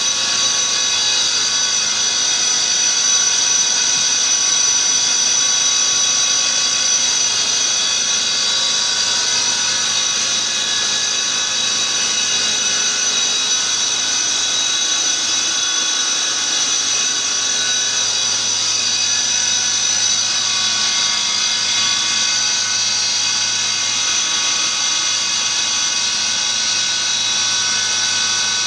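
Belt-drive reduction unit running on a test stand at a steady speed: an even, high-pitched mechanical whine made of several steady tones.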